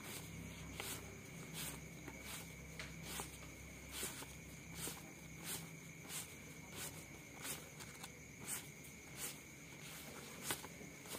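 US paper banknotes being counted by hand, each bill flicked off the stack with a soft papery snap, about two to three a second in a steady rhythm.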